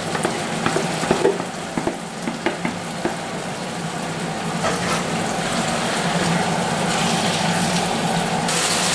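Chicken, tomato and pepper sizzling in oil in a frying pan as peas are scraped in with a spoon and stirred through, with light clicks of the spoon against the bowl and pan in the first few seconds. A steady hum from the kitchen extractor hood runs underneath.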